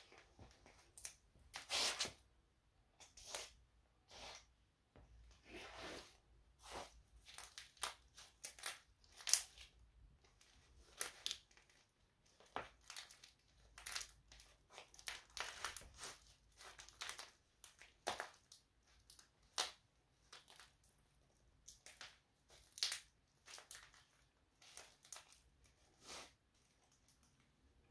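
Dry seed husks crackling and crunching under the soles of black Nike Air Max Plus (Tn) sneakers as the feet step and grind on them: many short, irregular crunches throughout.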